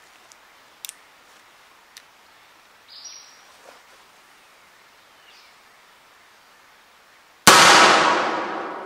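A couple of faint clicks, then about seven and a half seconds in one loud shot from an original Colt 1860 Army .44 cap-and-ball revolver fired with a paper cartridge and black powder, its report followed by a long echo that dies away slowly.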